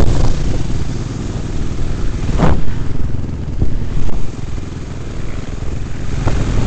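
Off-road motorcycle engines running close by, a low steady rumble, with one short rising rev about two and a half seconds in.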